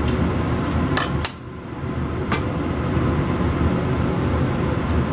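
Steady low mechanical hum, like a fan running, with a few sharp clicks of a table knife against a metal baking sheet in the first couple of seconds.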